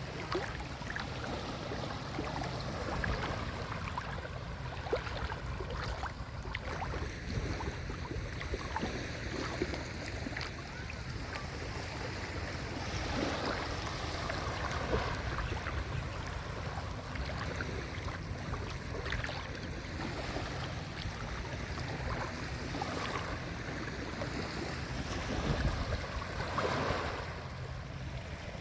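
Small sea waves washing onto the shore, a steady irregular wash of surf that swells a little louder near the end.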